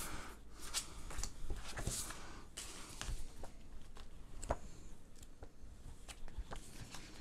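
Paper rustling and flicking as the pages of an instruction manual are turned and handled, in irregular soft snaps.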